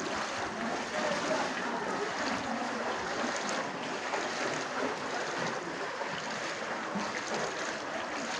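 Legs wading through knee-deep floodwater, a steady swishing and sloshing of water.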